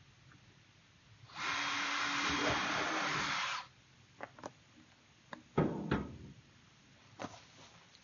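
Cordless drill running for about two seconds, boring a hole in a plastic paint bucket, followed by several separate clicks and knocks, the loudest a pair of thumps a little over halfway through.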